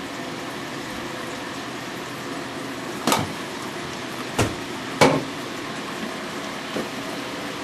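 Toilet tank refilling through a newly installed fill valve: a steady hiss of water running in. Three sharp knocks about halfway through.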